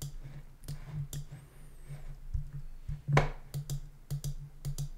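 Irregular clicking of computer input controls, a mouse and keys, with one louder click about three seconds in, over a low steady hum.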